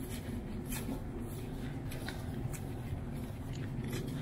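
Footsteps of a hiker walking on a trail, about two steps a second, over a steady low rumble on the microphone.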